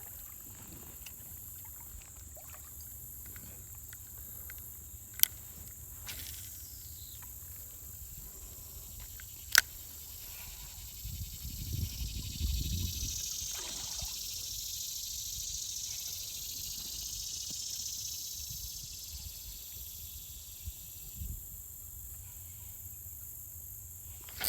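Creekside outdoor ambience with a steady high insect drone. Two sharp clicks come about five and ten seconds in, then a stretch of hissing rustle with a low rumble lasts about ten seconds.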